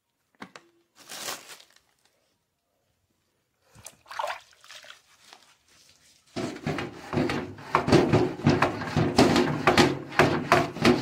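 Sponge with detergent scrubbing the slats of a louvered window shutter: a few faint handling sounds, then from about six seconds in, quick repeated back-and-forth scrubbing strokes.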